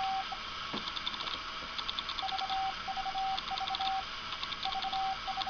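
Robley and Tough Piergraph No.2 semi-automatic Morse key (a 'bug') sending Morse with a larger weight fitted to slow its dots. The key's contacts click while a single-pitched sidetone beeps out groups of dots and dashes from about two seconds in.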